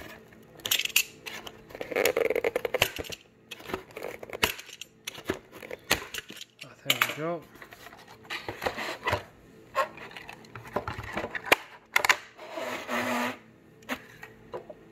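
Cardboard and plastic packaging being handled as a diecast model is unboxed: irregular rustling, scraping and clicking.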